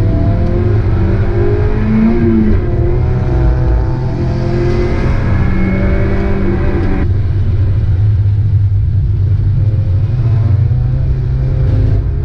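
Mazda Miata four-cylinder engine running hard on track, loud and steady, its pitch moving with the revs. The higher tones drop away suddenly about seven seconds in, leaving a low drone.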